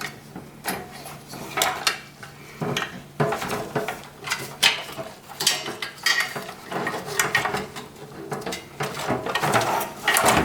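Irregular clicks, clacks and light metallic rattles as cables are unplugged and the drive bay is worked loose inside a desktop PC case.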